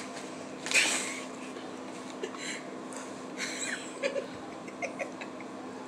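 Crinkling of a snack bag as a hand reaches in, then the crunching of a baked shrimp chip being bitten and chewed, in a few short bursts with the loudest about a second in. A steady low hum runs underneath.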